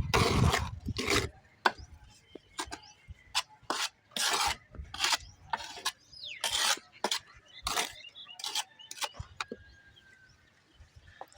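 Tiling tools scraping and knocking on mortar and ceramic tile: a longer scrape in the first second or so, then a string of short, irregular scrapes and taps.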